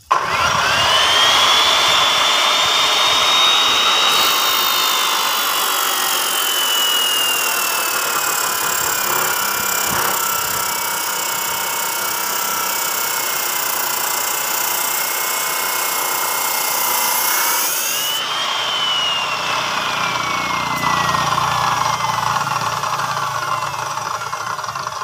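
Abrasive cut-off saw (chop saw) switched on, its motor whine rising, then grinding through a tied coil of steel wire with a harsh, gritty noise while the whine sinks under the load. About eighteen seconds in the grinding stops as the cut breaks through; the whine jumps up, then falls steadily away as the blade runs down.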